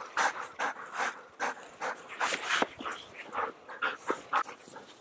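A dog panting hard and fast, about two to three breaths a second, winded from bounding through knee-deep snow.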